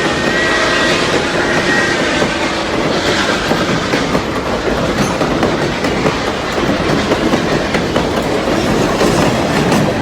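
Train rolling along the track, its wheels clattering over the rail joints in a steady clickety-clack, with faint high ringing tones that die away in the first two seconds.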